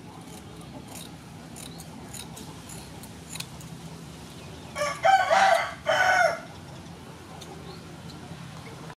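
A rooster crows once, about five seconds in, in two loud parts; it is the loudest sound. Before it come faint clicks of kitchen scissors snipping the fins off a sole.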